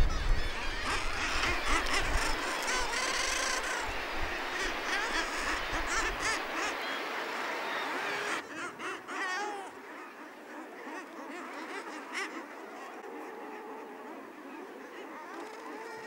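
Seabird colony on a breeding cliff, many birds calling at once, with wind rumbling on the microphone for the first six seconds or so. About eight seconds in the sound turns quieter, with fewer and lower-pitched calls.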